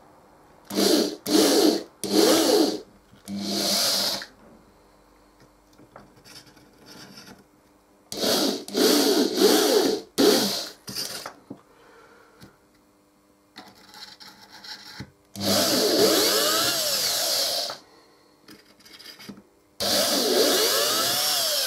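Electric drill with a 2.5 mm bit boring holes through the enclosure of a small electronics kit. It runs in several short trigger bursts, then in two longer runs of a couple of seconds each near the end, the motor whine rising and falling in pitch.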